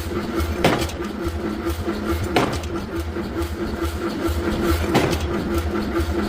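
Forging machinery running with a steady low hum, with three sharp strikes about two seconds apart.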